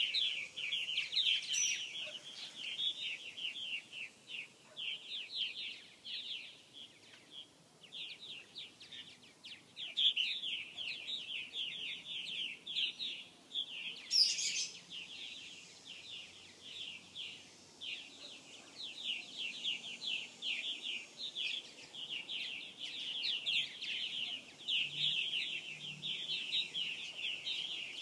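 A colony of purple martins chirping and chattering continuously, many rapid calls overlapping, with one louder, higher note about halfway through.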